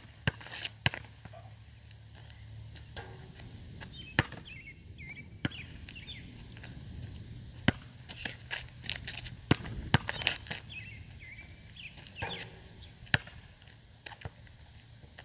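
Basketball bouncing on asphalt as it is dribbled: sharp bangs at irregular intervals, with birds chirping in the background.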